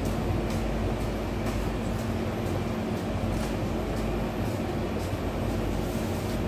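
A steady low rumble with a constant hum, with faint ticks about twice a second.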